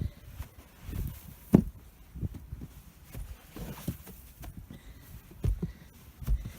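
Feet kicking snow out of the way: a string of irregular dull thuds, the loudest about a second and a half in.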